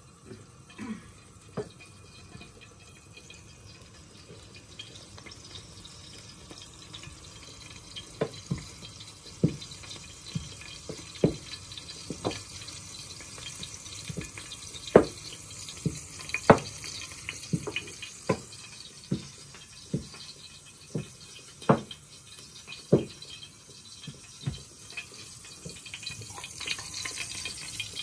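Short knocks and taps, irregular and roughly one a second from about eight seconds in, from dough, a rolling pin and utensils being handled on a floured kitchen counter.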